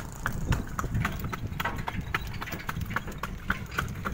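Horse's hooves clip-clopping on a concrete road as it pulls a cart, an even beat of about four hoof strikes a second over a low rumble.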